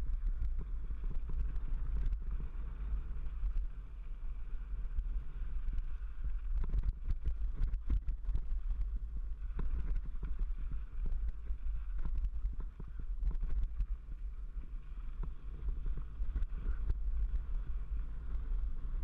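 Mountain bike rolling downhill on a dirt and gravel fire road, heard from a handlebar-mounted camera: a steady low rumble of wind and vibration, with many small clicks and rattles from the bike over the rough ground.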